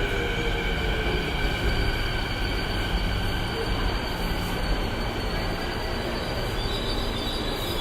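A steady low rumble with several high-pitched, steady squealing tones over it, like metal running on metal.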